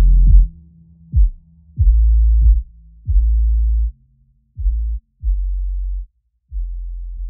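Electronic outro music: a run of deep bass notes, each opening with a short falling-pitch kick, getting quieter toward the end.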